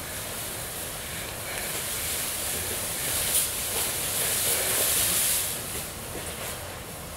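Clear plastic-film wings rustling and swishing through the air as the wearer spins. The sound swells and crackles in the middle, then drops off shortly before the end, leaving a steady hiss.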